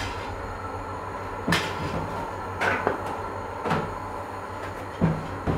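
About five sharp knocks and slaps, roughly one a second, over a steady low hum: dough and tools being handled on a steel work table.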